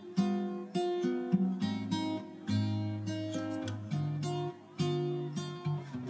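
Background music: acoustic guitar playing a stream of plucked notes and chords.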